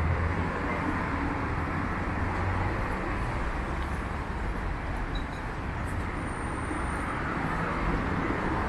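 Steady city street traffic noise: a continuous hum of passing road vehicles with a low rumble underneath.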